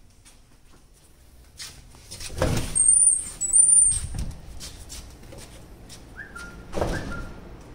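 An aluminium-framed glass door being pushed open, knocking and rattling a few seconds in with two short high squeaks. Another knock and a shorter squeak come near the end.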